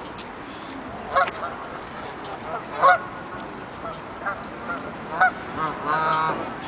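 Geese honking: a series of short honks, the loudest about a second and three seconds in, and a longer honk near the end.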